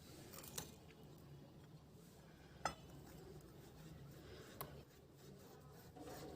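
Faint clinks of a utensil against a dish, three times, the one about two and a half seconds in the loudest, over quiet room tone.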